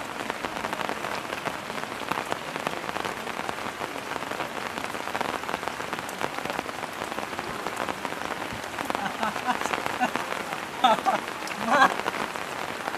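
Steady monsoon rain falling and pattering. Near the end there are a few brief voices.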